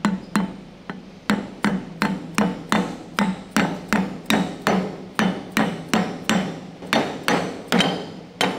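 Soft-faced mallet striking the machined metal housing of a Panzer I final drive, tapping the inner housing down into seat. The blows come evenly at about three a second, each with a short metallic ring.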